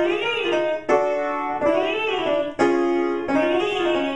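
A woman singing a fast vocal warm-up on 'we', running quickly up five notes and straight back down, three times, over piano chords. It is a quick five-note scale vocalise sung for agility, each run one smooth sweep rather than separate notes.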